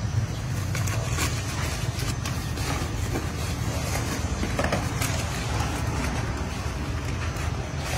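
Steady low mechanical rumble, with scattered light knocks and rustles as boxed cylinder liners and cardboard are handled.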